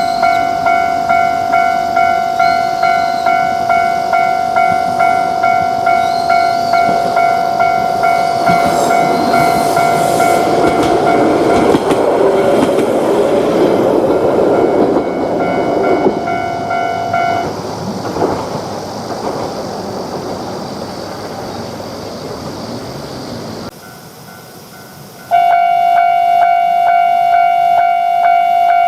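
Japanese railroad crossing's electronic warning bell ringing in a rapid, even clang-clang beat while a train passes, its rumble building and then fading; the bell stops about two-thirds of the way through. After a sudden break near the end, another crossing bell starts ringing.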